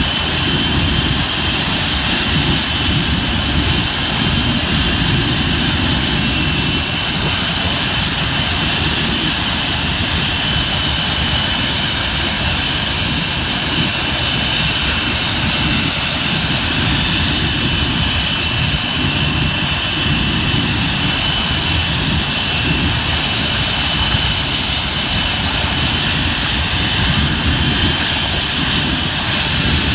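Panavia Tornado GR4's twin RB199 turbofan engines running steadily, a loud even rush with a constant high whine.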